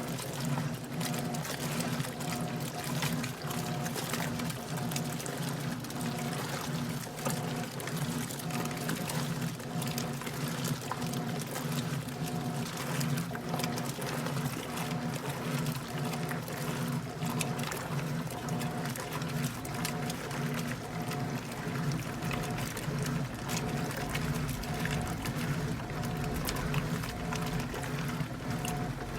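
Electrolux LTC10 10 kg washing machine running a load of jeans at its extra-low water level: a steady low motor hum with a repeating pulse, and water sloshing in the tub.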